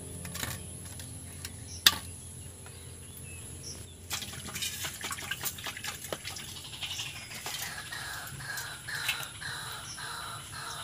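Birds calling in a repeated series of short chirps, clearest in the second half, over a steady low hum. Scattered light clicks and taps run through it, and one sharp click about two seconds in is the loudest sound.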